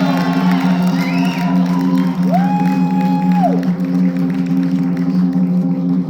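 Show music with a steady low drone. Sliding tones ride over it; one rises about two seconds in, holds, and slides back down about a second and a half later.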